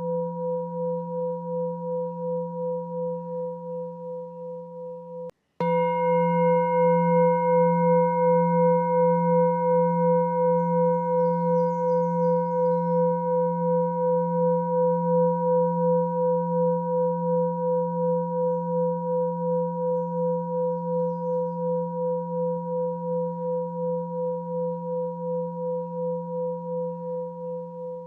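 A sustained ringing meditation tone, low with several overtones, pulsing about twice a second. It cuts out briefly about five seconds in, then starts again louder and slowly fades.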